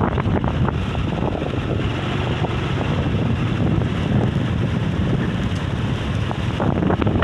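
Strong sea wind blowing straight across the microphone as a steady, heavy rumble of wind noise.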